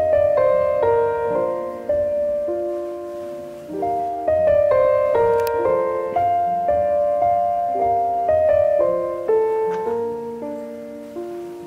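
Background piano music, a gentle melody over chords.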